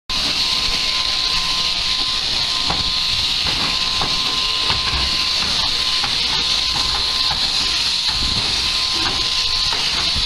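Overhead-driven sheep-shearing handpiece running: a steady, high hissing buzz with a constant thin tone under it, and scattered light knocks as the sheep is handled on the wooden board.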